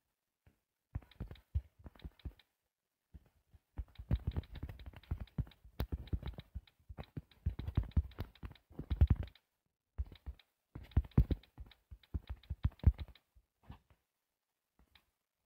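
Typing on a tablet's on-screen touch keyboard: quick runs of taps on the screen, coming in bursts with short pauses. The taps die away about a second and a half before the end.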